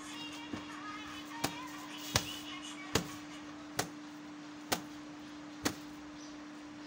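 Seven sharp knocks, about one a second, over a steady low hum.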